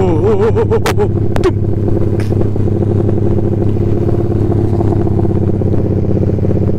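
Yamaha MX King 150's single-cylinder four-stroke engine running at a steady speed under the rider while cruising, with a few sharp clicks in the first couple of seconds.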